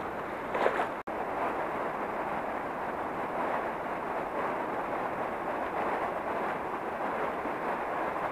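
Steady rushing of a river flowing over shallow rapids, with a brief louder burst and a sudden short break about a second in.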